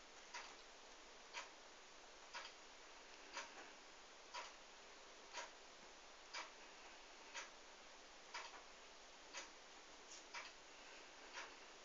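Clock ticking faintly and evenly, about one tick a second, over near-silent room tone.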